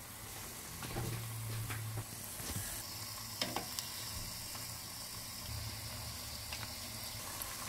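Batter-coated cauliflower pieces deep-frying in hot oil in a saucepan: a steady sizzle, with a few light clicks as a metal slotted spatula stirs the pieces against the pan.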